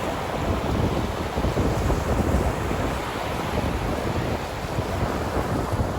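Sea waves washing on a shore with wind blowing, a steady rushing noise with a heavy low rumble.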